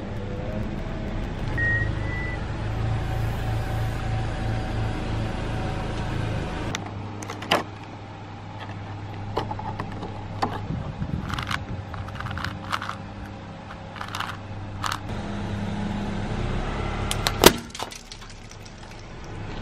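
A car engine's low steady hum, then scattered sharp plastic clicks and crinkles as a Rubik's cube is taken out of its clear plastic box. Near the end comes a loud crack as the car tyre crushes the cube.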